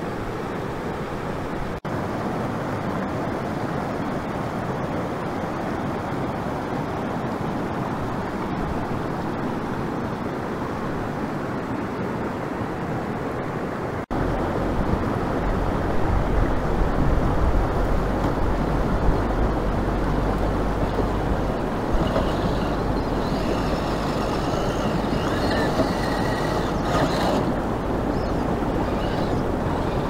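Steady rush of a fast-flowing mountain creek over rocks. About halfway in, after a cut, a heavy low wind rumble on the microphone joins it.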